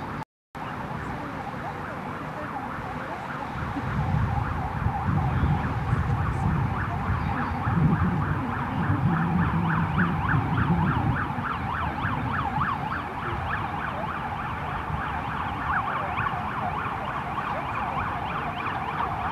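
A siren sounding in a fast, evenly repeating rise-and-fall pattern, with a low vehicle rumble underneath that swells about four seconds in.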